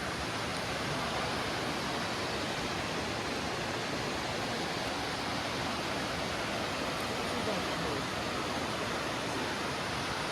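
Steady, even rush of flowing water, like a creek or small waterfall.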